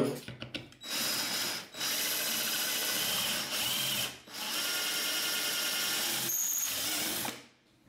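Electric power drill with a twist bit enlarging a hole in metal, running steadily in three stretches with short breaks about two and four seconds in, and stopping sharply near the end. A few light clicks come before it starts.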